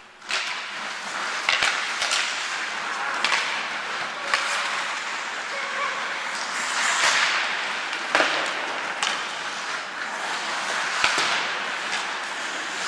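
Ice hockey play on a rink: skates scraping and hissing on the ice, with sharp clacks of sticks and puck at irregular moments, and players' shouts.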